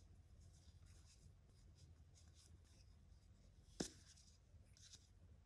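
Faint rustling and scratching of fingers handling a crocheted yarn piece and drawing a yarn tail through it, with a single sharp click a little under four seconds in.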